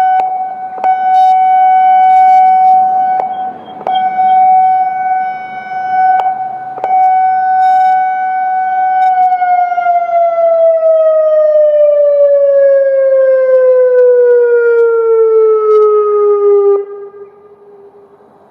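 Federal Signal Modulator 6024 siren sounding a steady warning tone that swells and fades in loudness, then about nine seconds in winding down: its pitch slides steadily lower for about eight seconds before the sound drops away sharply near the end.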